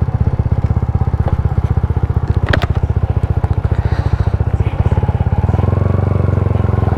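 Yamaha Y15ZR's single-cylinder four-stroke engine, freshly rebuilt with only the cylinder block changed, running under way in an even beat. It revs higher, rising in pitch, from about five and a half seconds in, with one sharp click about two and a half seconds in.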